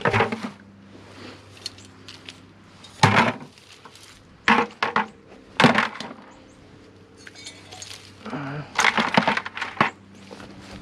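Pieces of scrap metal clanking and clinking as they are handled and dropped while a pile of scrap is sorted: a few separate sharp clanks, then a quick run of them about eight seconds in.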